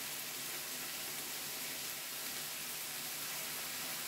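Pork belly and kimchi sizzling on a Korean barbecue grill over high heat: a steady, even hiss.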